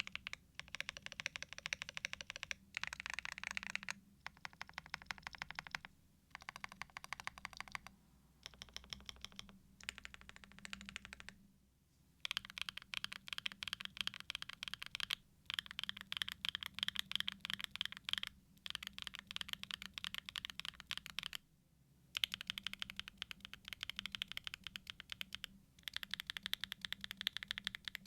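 Fast typing on a Neo Ergo mechanical keyboard with stock, factory-lubed BSun Buzz linear switches, gasket-mounted on an aluminium plate with ABS keycaps. The keystrokes come in quick runs of a few seconds, broken by short pauses.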